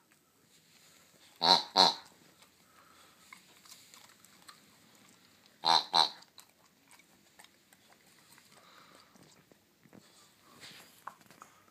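Blue rubber pig squeaky toy squeezed twice, each squeeze giving a pair of short, sharp squeaks, the pairs about four seconds apart.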